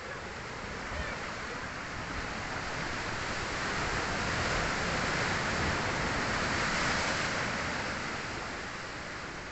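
Sea waves breaking and washing up the shore: a steady rush of surf that swells to a peak midway and then eases off.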